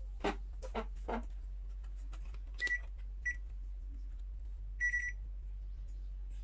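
A few soft handling knocks, then three short high beeps from an AN860B+ digital multimeter, the last one a little longer. A steady low electrical hum runs underneath.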